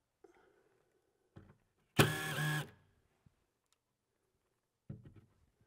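A cordless drill-driver's motor runs once for under a second, driving a locking stud into the cabinet side, with a few light clicks of parts being handled before and after.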